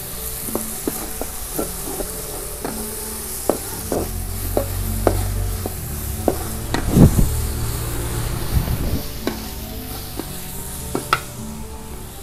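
Metal spatula scraping and knocking against a metal wok as spring onions and shallots are stir-fried, with oil sizzling steadily underneath. The strokes come every third to half second, the loudest a little past halfway.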